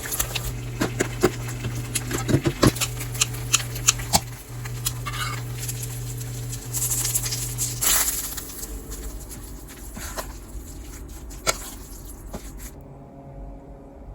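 Spoon or chopsticks clicking and scraping against a bowl as rice and toppings are mixed into bibimbap, with quick sharp clinks over the first four seconds. A steady low hum underneath stops about eight seconds in, and softer taps follow.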